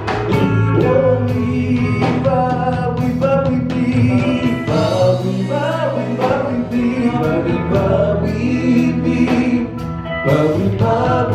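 Live gospel praise-and-worship music: voices singing together over a band, with a steady bass and regular drum hits.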